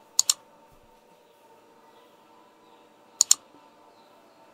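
Two quick double mouse-click sound effects from an animated subscribe-button overlay. The first comes just after the start and the second about three seconds later, over faint room tone.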